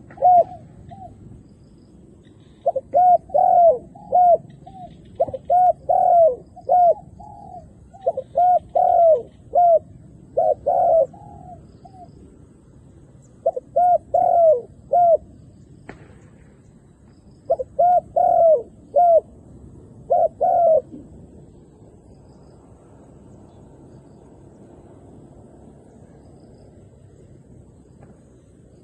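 Spotted dove cooing in repeated short phrases of several coos, a phrase every second or two, then stopping about twenty seconds in. It is a decoy dove calling to bring wild doves down.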